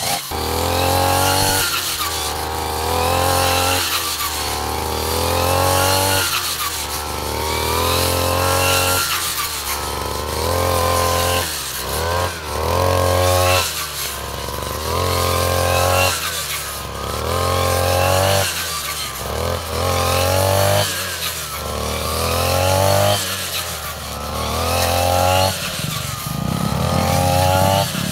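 Backpack petrol brush cutter running hard, its engine revving up and dropping back over and over, about every two seconds, as the blade cuts through grass.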